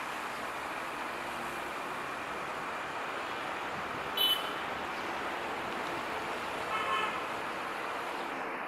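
Steady running noise of a passenger train moving away along the track, mixed with city traffic noise. Two short horn toots cut through it, one about four seconds in and a slightly longer one about seven seconds in.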